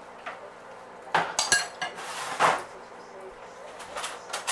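Metal spoons and a mixing bowl clattering as they are put down on a kitchen bench: sharp clinks and knocks a little over a second in, a louder clatter about two and a half seconds in, and more knocks near the end.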